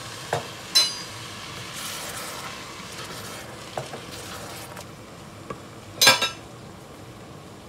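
Sizzling in a hot pot as a glass of water goes onto the rice, fava beans and dill, with a spoon stirring and clinking against the pot; the loudest, ringing clink comes about six seconds in.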